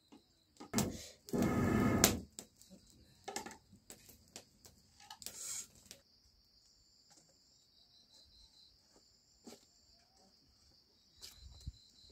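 A short, loud burst of a person's voice about a second and a half in, with scattered clicks. From about six seconds in, insects chirr steadily and high-pitched.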